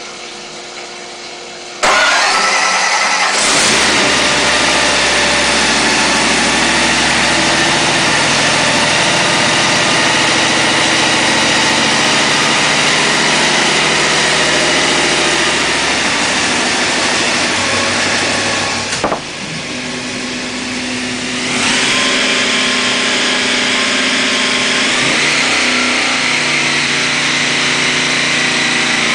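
Roots-supercharged V8 with twin carburettors, mounted on an engine dynamometer, starting up about two seconds in and then running loud and steady. The sound drops for about two seconds past the middle, then comes back.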